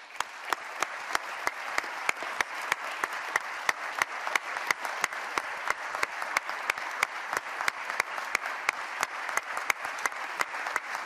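A crowd applauding, a dense patter of hand claps with a few sharp individual claps standing out. It swells up over the first second and then holds steady.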